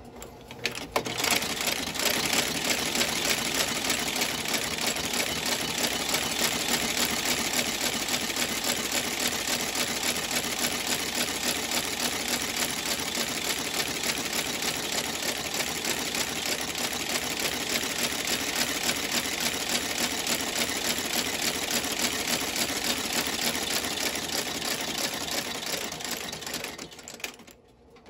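Industrial cast-iron sole-stitching machine stitching a leather boot outsole. Its rapid, even clatter of needle strokes starts about a second in, runs steadily and stops near the end.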